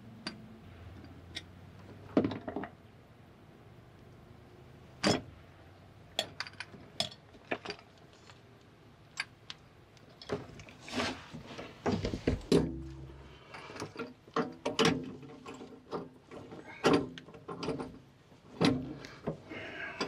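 Irregular clicks, clinks and scrapes of brass plumbing fittings and hand tools being handled as a brass valve fitting is fitted onto a tankless water heater.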